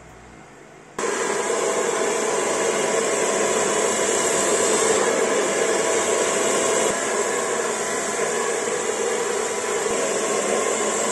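Handheld hair dryer blowing steadily, starting abruptly about a second in.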